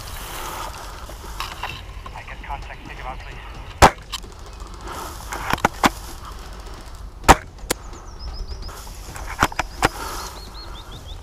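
Airsoft guns firing: about eight sharp cracks, unevenly spaced, the loudest two about four and seven seconds in.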